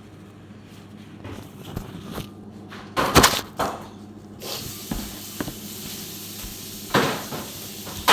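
Kitchen handling sounds: dishes and utensils knocked and set down several times, loudest about three seconds in and again near the end. A steady hiss starts about halfway through.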